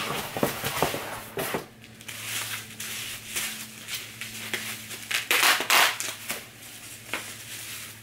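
Bubble wrap crinkling and crackling as it is pulled open from around a framed picture, with stiff cardboard packaging handled at the start.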